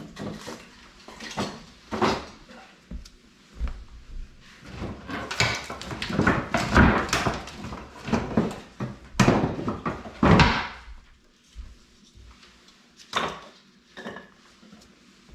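Irregular knocks, clunks and scraping of hard objects being handled and set down while a wood-burning fireplace is readied for a fire, with a dense run of clattering through the middle and only a few knocks near the end.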